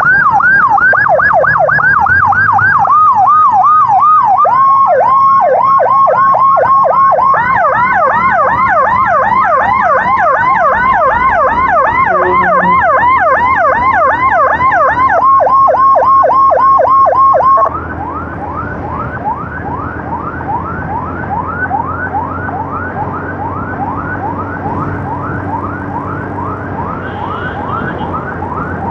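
Two electronic emergency sirens, of the ambulance and its escorting motorbike, yelping in fast repeated sweeps over each other, loud, with engine and road rumble beneath. About 18 seconds in, the louder, closer siren cuts off suddenly, leaving the other yelping more quietly.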